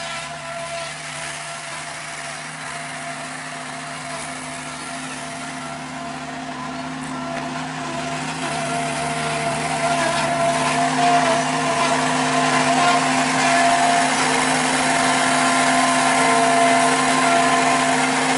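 Skid-steer loader engine running steadily, getting louder about eight to ten seconds in as the machine drives up close with a loaded bucket.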